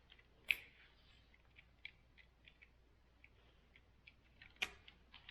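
Faint, scattered light clicks and scrapes of hand work on a window screen frame, with two sharper clicks, one about half a second in and one near the end.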